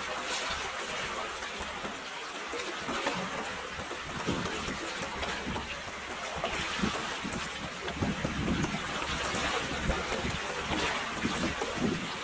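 Water running steadily, with wind buffeting the microphone in irregular low rumbles.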